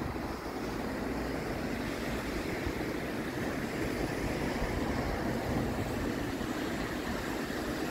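Sea surf washing and breaking over rocks below a low cliff, heard with wind as a steady rushing noise.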